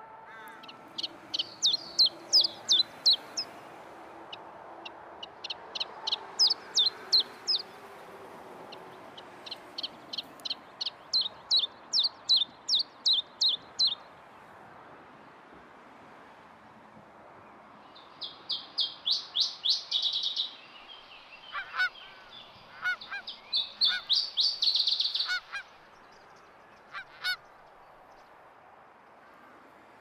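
Wild birds singing and calling: several phrases of rapid, high repeated notes, each lasting a few seconds, then a denser run of high notes mixed with lower calls in the second half.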